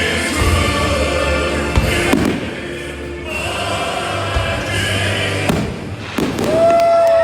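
Fireworks bursting in repeated sharp bangs over loud music.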